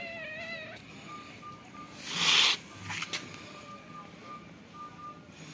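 A kitten's meow trails off in the first second, and about two seconds in there is a short, loud hiss-like burst.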